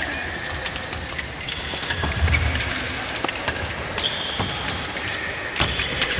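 Fencers' footwork on the piste: irregular stamps and knocks of feet on the floor, echoing in a large hall.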